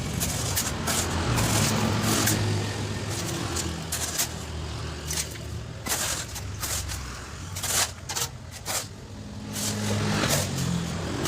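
Sand truck's engine running with its speed shifting up and down, while many short knocks and rattles sound over it.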